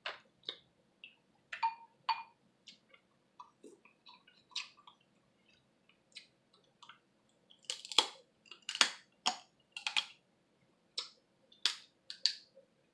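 Snow crab leg shell being cracked and snapped apart by hand: a run of sharp cracks, the loudest a few about 8 to 10 seconds in, with quieter clicks and chewing sounds between.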